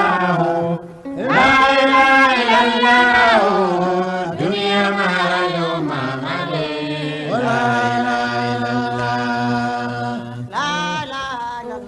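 A voice chanting an Islamic devotional song in long held phrases, each opening with an upward slide in pitch, with a breath-break between phrases.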